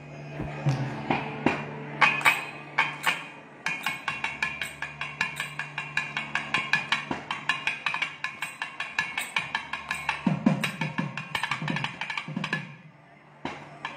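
Thavil drum solo: fast, dense runs of sharp strokes on the drum's right head, played with hard-capped fingers. Near the end come a few deep, ringing strokes, then a short pause.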